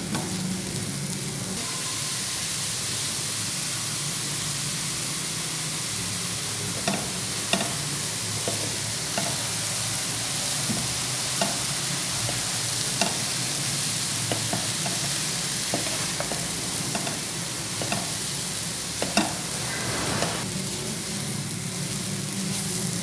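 Grated radish sizzling in a nonstick kadai while a spatula stirs it, with short scrapes and taps against the pan now and then. The sizzle is the radish's own water cooking off.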